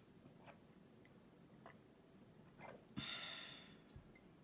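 A drinking glass of milk tea clinks as it is set down about three seconds in, the clink ringing out for about a second; a few faint light ticks of handling come before it.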